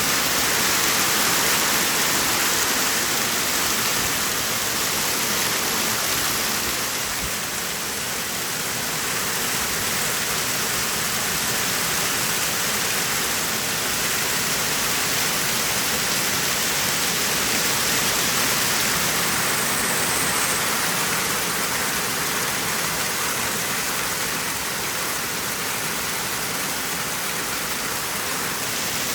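Hail and heavy rain falling together as a dense, steady hiss with no single impact standing out.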